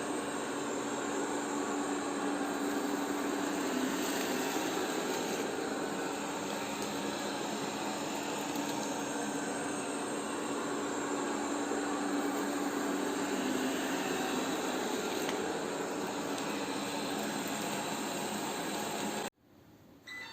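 Polaris PVCR 3200 IQ Home Aqua robot vacuum cleaner running, a steady whir with a low hum. It cuts off suddenly about a second before the end.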